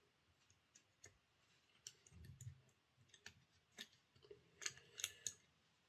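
Faint, scattered clicks and small knocks from hand tools working at the glued-up wheel of an old OO-gauge model locomotive.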